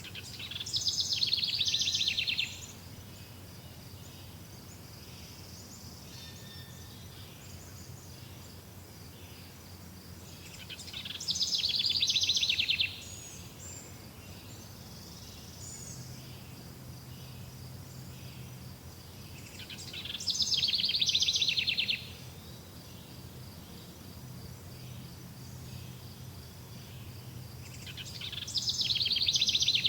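A songbird singing the same song four times, about every nine to ten seconds: each is a rapid high trill about two seconds long that swells louder and stops abruptly. A faint steady high insect-like buzz runs underneath.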